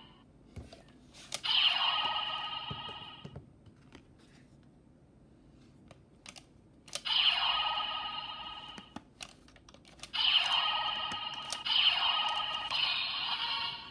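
Electronic sound effects from a DX Chemy Riser toy's small speaker: a bright, tinny chime about a second and a half in, another about seven seconds in, then three in quick succession from about ten seconds. Each fades away. Light plastic clicks come between them as Ride Chemy cards are slid into the toy's slot.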